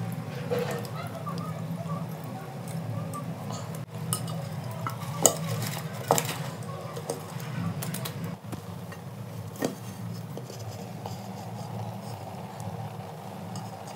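Aluminium cooking pots clanking as one pot is set upside down over another as a lid, with a few sharp metal knocks over a steady low hum.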